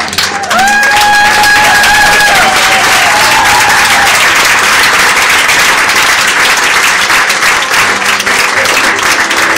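Theatre audience applauding, with one long held cheer over the clapping in the first few seconds.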